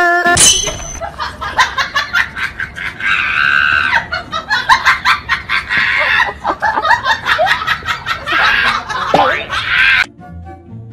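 Loud human laughter in rapid bursts, mixed with shrieks, that cuts off suddenly about ten seconds in, where light music takes over.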